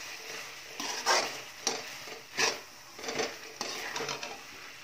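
Metal spatula scraping and stirring a thick chickpea and potato masala in a metal kadhai, in irregular strokes roughly every half second, over the sizzle of the mixture frying.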